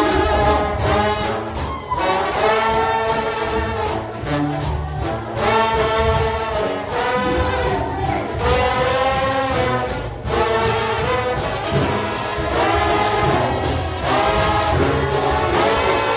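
Trombone shout band playing gospel music loudly in short repeated phrases over steady percussion.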